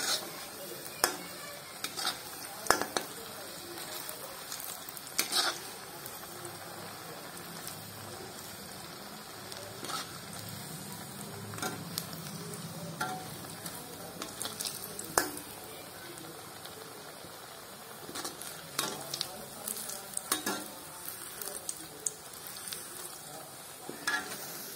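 Vegetable cutlets deep-frying in hot oil in an iron kadhai: a steady sizzle, with sharp clinks of a metal slotted spoon against the pan now and then as they are turned.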